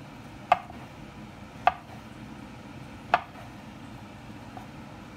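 Kitchen knife slicing through fresh shiitake mushrooms, the blade knocking three times on a bamboo cutting board, with a faint fourth knock near the end.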